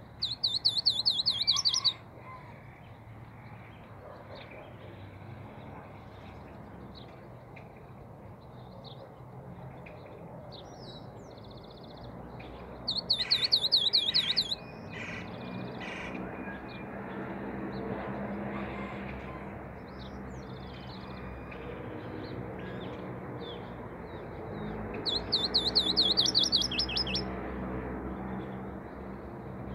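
A caged songbird, a cabresto collarejo, singing three short bouts of rapid, high, repeated trills, each about two seconds long and roughly twelve seconds apart.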